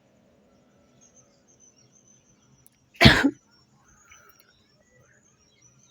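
A woman's single loud sneeze about three seconds in, brought on by sniffing a tobacco-like powder.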